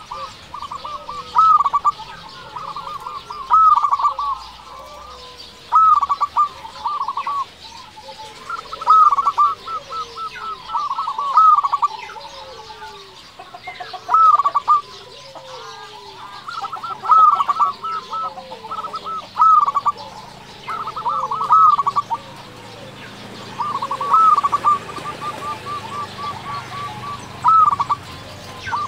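A local Indonesian zebra dove (perkutut) singing: repeated phrases of rapid staccato coos, with a new phrase about every two seconds. Fainter, lower sliding notes run between the phrases.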